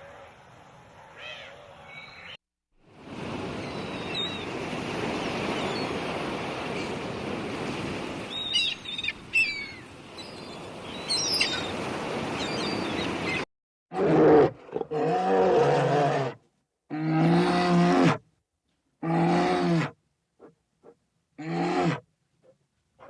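A stretch of steady noise with a few high chirps, then a series of about five loud, drawn-out calls from a large animal, each lasting one to two seconds, with abrupt silent gaps between them.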